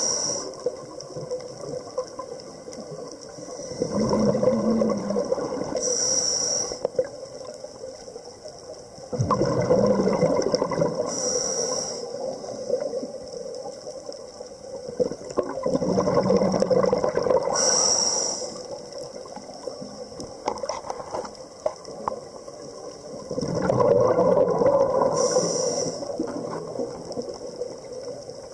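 Scuba diver breathing through a regulator underwater: a short hissing inhalation about every six seconds, each followed by a longer gush of exhaled bubbles.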